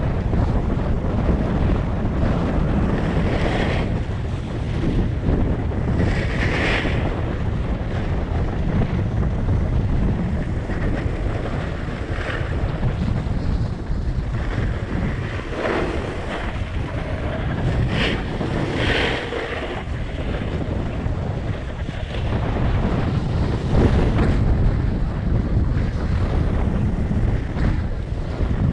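Wind buffeting a GoPro Hero7's microphone during a fast snowboard run, with the board's edge hissing and scraping over packed snow in short swells during turns, several times.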